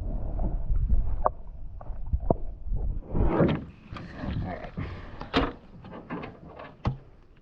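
Wind rumbling on the microphone for the first few seconds, then a scatter of light knocks and clicks, as of gear being handled in a small boat.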